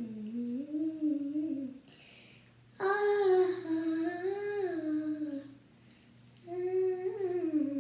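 A young voice humming a wordless tune in three drawn-out phrases, with the echo of a small room.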